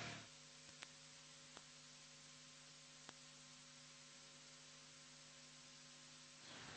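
Near silence: a faint steady hum, with three faint clicks in the first half.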